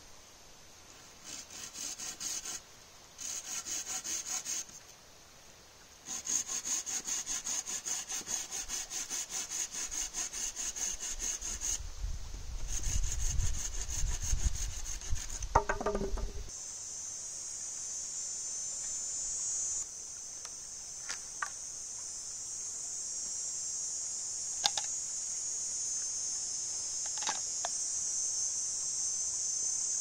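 Hand saw cutting birch poles in quick back-and-forth strokes: two short bouts, then a longer run of steady strokes, followed by a few low thumps and a brief creak as the wood is handled. From about halfway, a steady high buzzing of insects takes over, with a few faint clicks.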